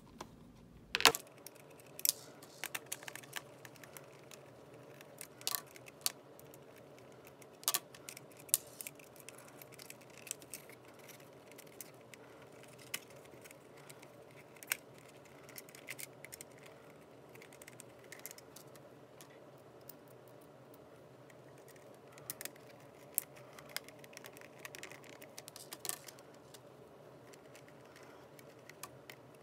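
Scattered light clicks and taps of small parts being handled: a screwdriver and loose screws set down on a tabletop, and a plastic visor being worked in behind the facemask of a mini football helmet, over a low steady room hum.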